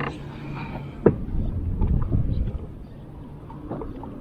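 Low rumbling noise on a fishing boat with a single sharp knock about a second in, then a few faint ticks of handling.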